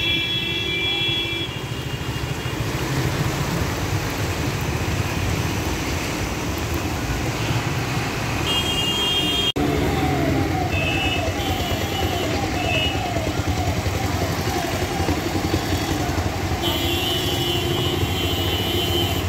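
Road traffic moving through a flooded city street: a steady wash of engine and water noise, with vehicle horns honking several times in short blasts.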